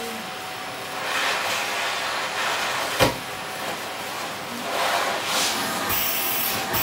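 Vacuum cleaner running with its hose in a black plastic bin bag, sucking the air out of the bag. One sharp click about three seconds in; from about six seconds in the sound turns brighter and more hissing.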